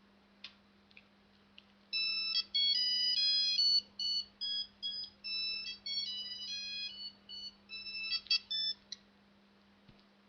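Mobile phone ringtone: a short electronic melody of high beeping notes from the phone's small speaker, lasting about seven seconds and then cutting off. A few faint clicks come just before it starts.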